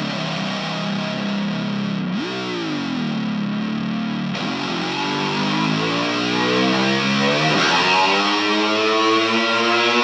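Intro of a heavy metal song: a distorted electric guitar played alone through effects, its notes swooping up and down in pitch several times, then climbing slowly over the last few seconds.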